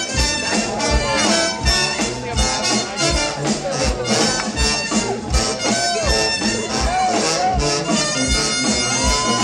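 Live band playing a blues with a horn section of saxophones, trumpet and French horn over acoustic guitars, on a steady drum beat about two per second. A horn holds one long note near the end.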